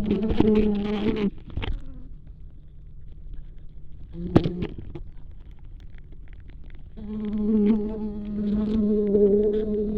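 Flies trapped in a fly trap bag, heard through contact microphones on the bag: a buzzing drone with scattered clicks. It breaks off after about a second, comes back in a short burst about four seconds in, then buzzes steadily again from about seven seconds on.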